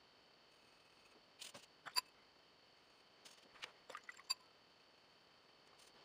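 Faint, light clicks and taps of a paintbrush against a watercolour palette while paint is mixed, a couple of them with a brief ring.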